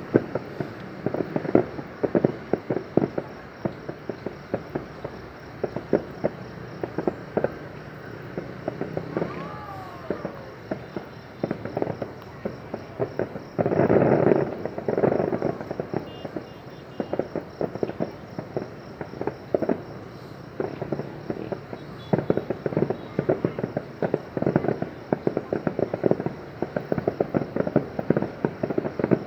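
Aerial fireworks display with rapid, continuous crackling pops. A louder, denser burst comes about halfway through.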